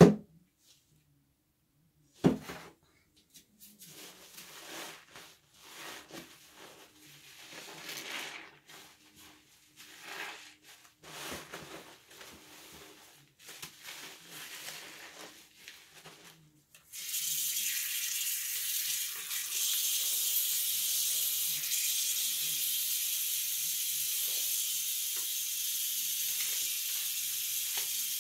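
Two knocks, then a stretch of intermittent clattering and rustling, then a steady high hiss that starts suddenly a little past halfway and keeps on without a break.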